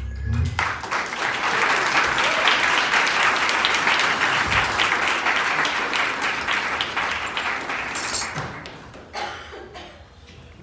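A band's last low note dies away, then the audience applauds, the clapping thinning out and fading over the last couple of seconds. A short bright high-pitched burst about eight seconds in is the loudest moment.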